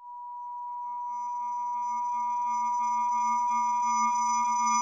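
Synthesized intro sting: a steady high electronic tone fades in, and lower and higher tones join it within the first second, the whole chord swelling steadily louder.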